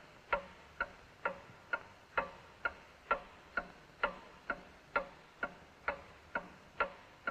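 A clock ticking steadily, about two ticks a second, each tick short and sharp.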